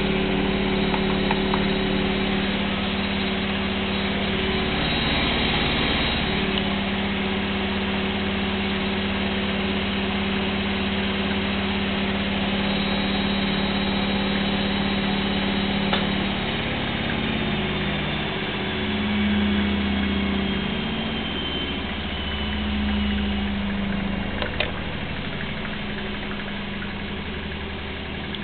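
Gorenje washing machine on its spin cycle, the drum and motor running with a steady hum and high whine. About halfway through the hum starts to waver and the whine falls slowly as the spin slows down.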